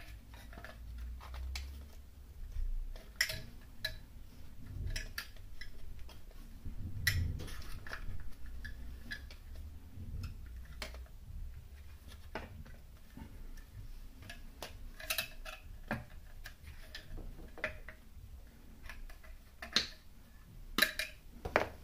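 Irregular light clicks and taps of hand tools and small fittings being handled during electrical fitting work, with a few sharper knocks near the end.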